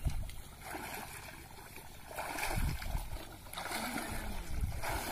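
A person wading through shin-deep water in a flooded rice paddy, legs sloshing and splashing through water and stalks in irregular surges.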